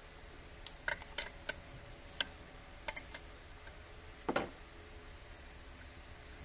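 A scatter of sharp metallic clicks and clinks from a steel socket and extension meeting a bolt and the metal around it, then a single duller knock about four seconds in.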